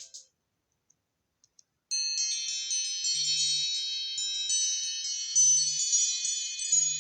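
iPhone ringtone: the previous tone cuts off at the very start, then after about two seconds of silence a new ringtone begins, a bright, chime-like run of high ringing tones with a few short low buzzes mixed in.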